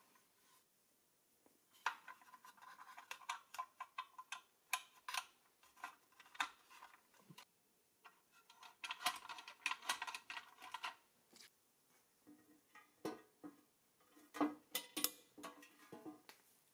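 Small metal toy-car parts and a screwdriver handled and fitted together: scattered light clicks and clinks, some ringing briefly.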